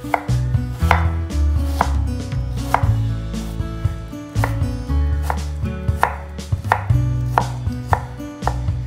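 Chef's knife dicing an onion on a wooden cutting board: sharp knocks of the blade striking the board, about one a second.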